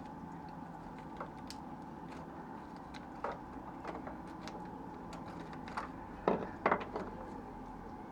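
Small plastic clicks and taps from handling and plugging in the LED angel-eye ring's connector in a BMW E90 headlamp housing, with two louder clicks close together about six seconds in, over a steady low hum.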